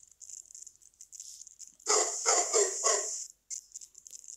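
Small white dog barking four times in quick succession, about two seconds in.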